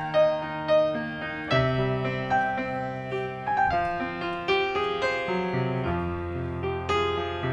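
Piano playing a gentle instrumental introduction to an Easter song, with a melody over sustained bass notes.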